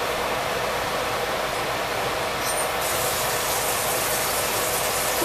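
Hush puppies deep-frying in hot oil: a steady, dense sizzle and crackle of the bubbling oil.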